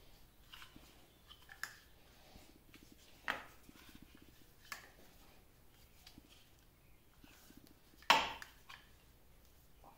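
Scattered metal clinks and knocks of hand tools and cast-iron parts as a lathe's taper attachment is taken apart by hand. A few light clinks come first, and the loudest, a sharp clank with a short ring, comes about eight seconds in.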